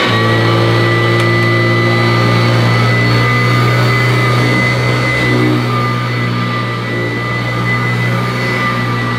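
Kirby Classic III upright vacuum cleaner running on carpet. A deep hum comes in right at the start, under a steady, high-pitched tone from the motor. The owner finds the tone ear-piercing and not how a Kirby should sound, and suspects something is not quite right with the machine.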